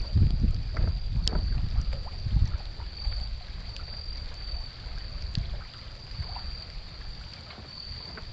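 Wind buffeting the microphone as a heavy low rumble, strongest for the first couple of seconds and then easing off. Under it runs a steady high-pitched whine, and a few sharp clicks sound now and then.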